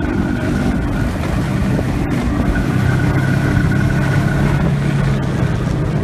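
Snowmobile engine running steadily at cruising speed while riding over snow, a constant hum under rushing wind noise.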